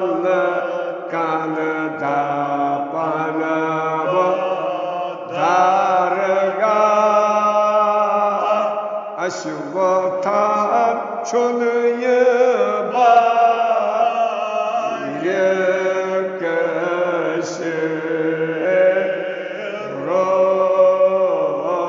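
An elderly man chanting a Kashmiri marsiya, a mourning elegy, as a solo voice in long melodic lines that hold and bend in pitch, with short breaks for breath.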